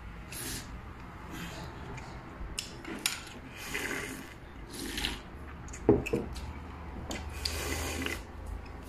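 Slurping sips of milk tea drunk straight from a bowl: a series of hissy draws, each under a second long, with a sharp knock about six seconds in.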